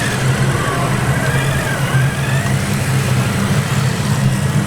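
Steady, idling diesel-like engine rumble from a large-scale RC construction machine model, with faint wavering higher tones over it.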